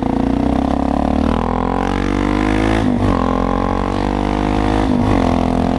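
Suzuki DRZ supermoto's single-cylinder four-stroke engine accelerating, its pitch climbing and then dropping sharply as it shifts up, about three seconds in and again about five seconds in.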